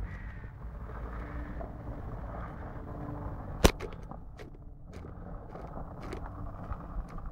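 A car's engine running at a distance with a steady low rumble and a faint hum. A single sharp click about three and a half seconds in is the loudest sound, followed by a few fainter ticks.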